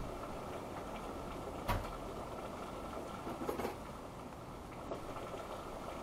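Rain falling on a stationary car, heard through its dashcam's microphone as a steady, muffled wash of noise. A few sharper drops or knocks stand out, the loudest a little under two seconds in and a small cluster around three and a half seconds.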